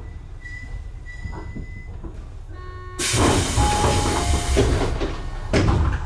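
Tobu 9000-series electric train coming to a stop at a platform, heard from inside the car: a thin steady squeal for the first two seconds, then about three seconds in a loud hiss of released air lasting a second and a half, and another short burst near the end.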